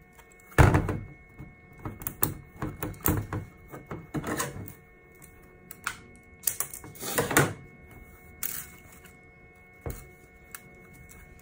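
Irregular clicks, knocks and plastic rustling as a spool of red PLA filament and its wrapping are handled by hand.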